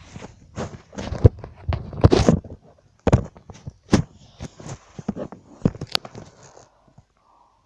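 Handling noise from a phone being carried and covered: irregular rustles, scrapes and sharp knocks against the microphone, dense at first and thinning out, fading away near the end.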